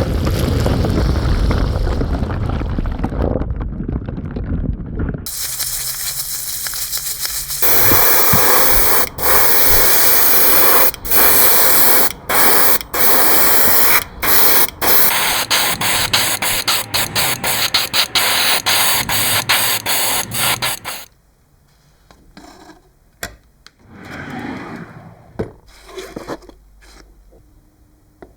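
High-pressure spraying hiss, switched on and off in many short bursts, which stops abruptly about two-thirds of the way in. Quieter scattered handling sounds follow.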